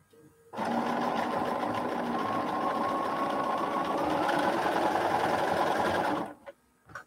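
Bernina sewing machine stitching a seam at a steady speed for close to six seconds, starting about half a second in and stopping abruptly, followed by a couple of short clicks.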